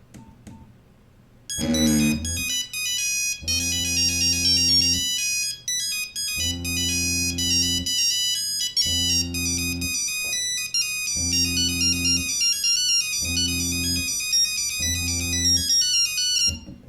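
A polyphonic mobile phone ringtone playing through the phone's small speaker: a busy, high synthesized melody over a low chord that pulses about every two seconds. It starts about a second and a half in and stops just before the end.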